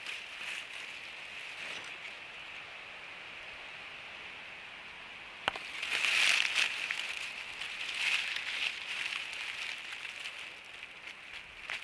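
Dry grass and forest litter rustling and crackling as a hand parts it close to the microphone, with a single sharp click about five and a half seconds in and louder, uneven rustling after it.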